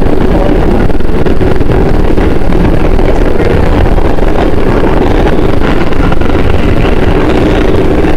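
New York City Subway 4 train running at speed through a tunnel: a loud, steady running noise of the train, with no pauses.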